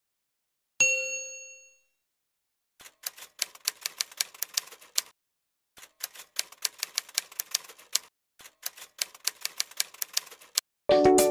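Typewriter sound effect: rapid key clicks in three runs of about two seconds each, after a single bell-like ding about a second in. Music starts just before the end.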